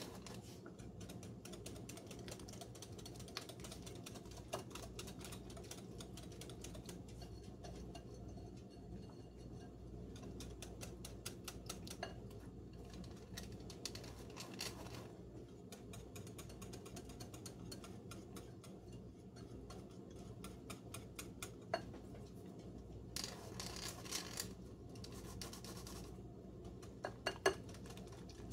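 Hand-crank flour sifter being turned, its wire agitator rasping flour through the mesh in a faint, rapid run of clicks, with a few louder knocks near the end.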